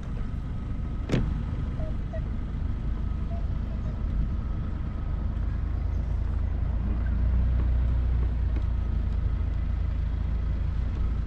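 Pickup truck driving, a steady low rumble of engine and road noise, with one sharp knock about a second in.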